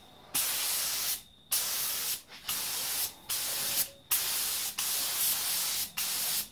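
Compressed-air paint spray gun spraying metallic silver acrylic paint in short trigger-pulled passes: a steady hiss that stops and restarts about seven times, with brief pauses between passes.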